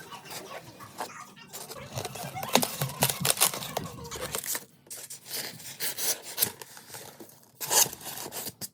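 Packaging being handled and torn open: irregular rustling, crinkling and tearing, with scattered knocks.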